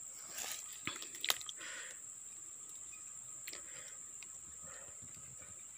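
Quiet swamp-edge ambience: a steady high whine, like insects, with a few light clicks and rustles of vegetation and handling, mostly in the first second and a half.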